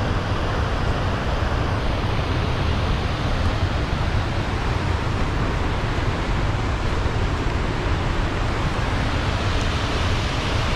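Waterfall and fast river rapids rushing steadily, a dense unbroken wash of white-water noise.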